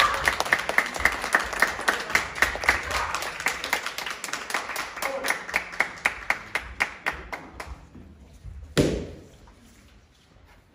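Spectators applauding in a large wooden hall, the clapping fading away over several seconds. Near the end there is a single loud thump.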